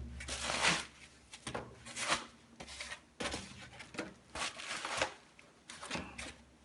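Packaging being handled while a boxed machine is unpacked: irregular rustling and crinkling swishes, several a second.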